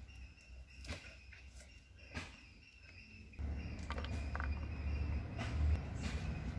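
Light taps and clicks of garlic being peeled and cut with a knife on a wooden board, over a faint steady chirring of insects. About three and a half seconds in the background turns louder and lower.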